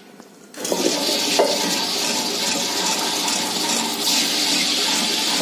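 Table-top wet grinder running: its stone roller turns in the steel drum, grinding soaked urad dal with water into idli batter. A steady churning whir starts about half a second in.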